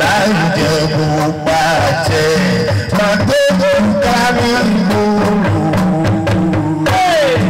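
A man singing live into a microphone over drums and percussion, his voice sliding down in pitch near the end.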